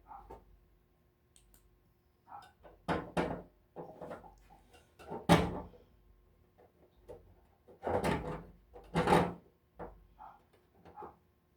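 Electric stove heater's casing being handled and shifted while it is reassembled: a series of clunks and knocks, the loudest about five seconds in and again around eight to nine seconds in, with lighter clicks and rattles between.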